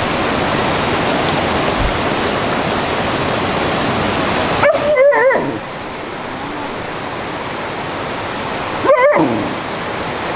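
Stream water rushing steadily, with a dog giving two short, wavering whines about halfway through and near the end. The rushing eases a little after the first whine.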